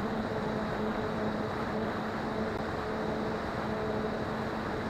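RC model airplane's motor and propeller running steadily in flight, heard through the onboard camera: an even hum at a constant pitch over rushing wind noise.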